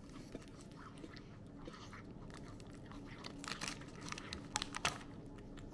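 A cat eagerly chewing a salmon-flavoured 'chocolate' pet treat: faint, scattered crunches and mouth clicks, a few louder bites about three and a half to five seconds in.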